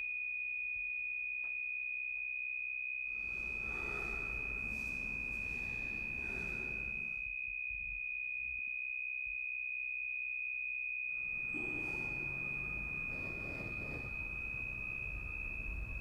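A steady, high-pitched pure electronic tone, held at one pitch and level without fading, with a faint background hiss that comes in about three seconds in, drops away around seven seconds, and returns near the end.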